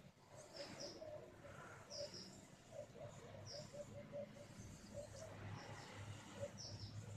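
Faint bird calls: short high chirps repeated every second or so, mixed with a string of brief, lower cooing notes.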